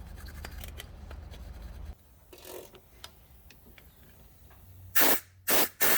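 Three short, loud blasts of air blowing loosened dirt away from around a spark plug so that it cannot fall into the cylinder when the plug is removed. Before them, a steady low hum with faint ticking stops abruptly about two seconds in.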